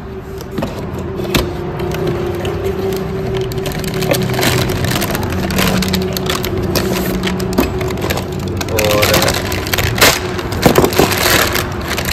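Cardboard box flaps rustling and a plastic bag crinkling as hands rummage through the box and lift out a bagged part, with a few sharper clicks and knocks along the way.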